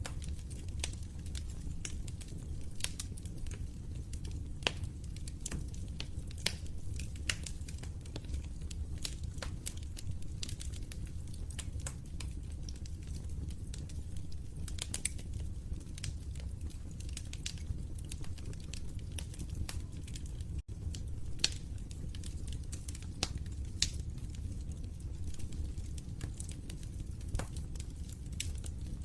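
Fireplace fire crackling: frequent irregular small pops and snaps over a steady low rumble of flames, with a momentary dropout about two-thirds of the way through.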